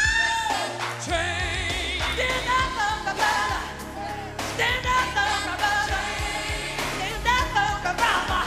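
Live pop-gospel song: a male lead singer ad-libbing, with sung swoops up and down in pitch, over a band with a steady beat and a backing choir.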